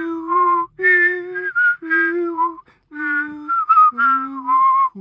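A person whistling a short Japanese railway chime melody while voicing a lower note at the same time. The two pitches move separately in a run of short held notes with brief breaks.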